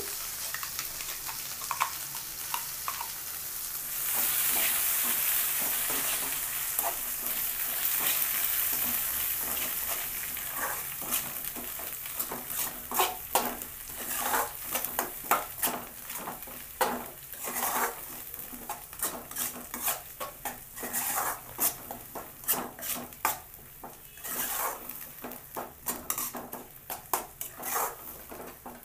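Ground mint chutney sizzling in hot tempering oil in a metal kadai. The sizzle swells about four seconds in and fades over the next several seconds. After that, a spoon scrapes and knocks against the pan many times as the chutney is stirred.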